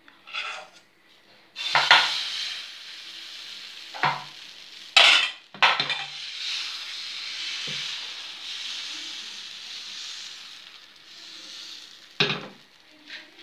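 Thin crêpe batter sizzling as it hits a hot non-stick frying pan, the hiss starting just under two seconds in and easing off near the end. Several sharp clinks and knocks of metal cookware against the pan come through it as the batter is poured and spread.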